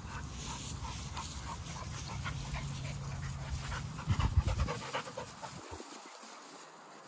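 Pit bull-type dog panting in quick, short breaths over a low rumble on the microphone. A cluster of loud knocks comes about four seconds in, after which the rumble drops away.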